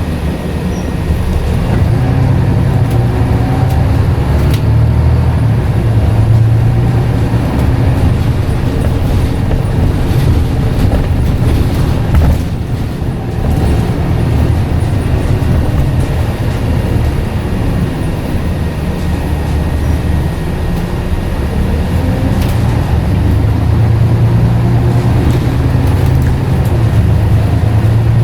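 Scania N94UD double-decker bus engine running on the move, a steady low drone that swells and eases with the road, dipping briefly about twelve seconds in.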